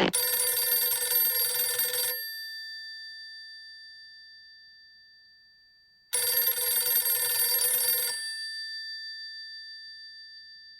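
Old dial telephone's mechanical bell ringing in two rings about two seconds long, four seconds apart. Each ring is a rapid clattering and rings on, fading, after it stops.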